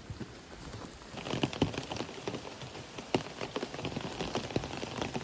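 Rain pattering close to the microphone: dense, irregular drop taps that start about a second in.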